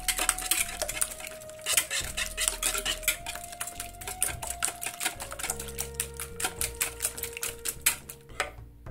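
Metal wire whisk beating eggs and cubed cheese in a plastic mixing bowl: rapid, irregular clicking and tapping of the wires against the bowl, stopping shortly before the end.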